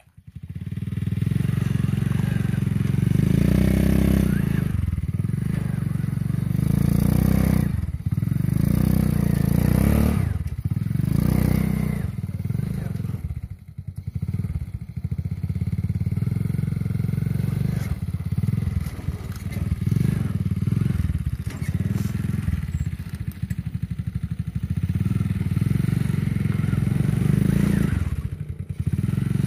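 Old motorcycle engine powering a homemade four-wheel-drive ATV, running continuously. Its note rises and falls with the throttle, easing off briefly several times.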